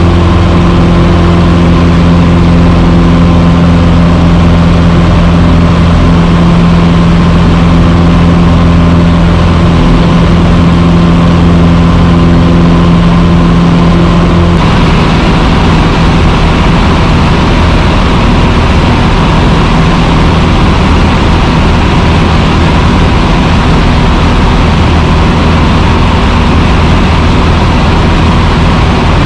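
Cessna 150's four-cylinder Continental O-200 engine and propeller droning steadily in cruise, heard loud from inside the cockpit. Its tone changes abruptly about halfway through.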